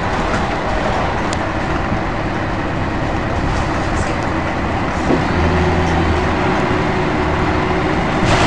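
Scania L113CRL bus's six-cylinder diesel engine running, heard from inside the passenger saloon along with rattling from the bodywork. About five seconds in, a steadier, deeper engine note sets in.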